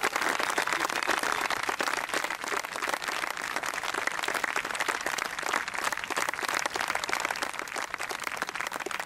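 Crowd applauding: many hands clapping in a steady, even patter.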